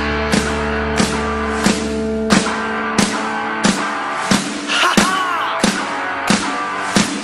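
Rock music with electric guitar and drum kit, the drums striking about every two-thirds of a second, with a short sung phrase about five seconds in.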